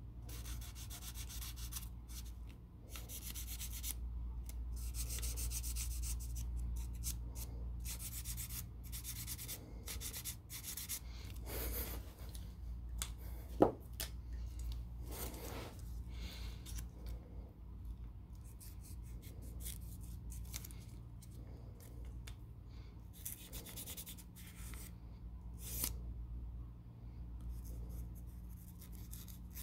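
Sharpie felt-tip marker scratching across folded paper in many short back-and-forth strokes as it colours in, with a single sharp tap about halfway through and a steady low hum underneath.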